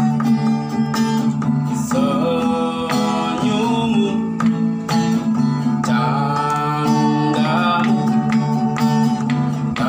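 Music: a plucked string instrument over a steady low drone, with a voice singing gliding phrases.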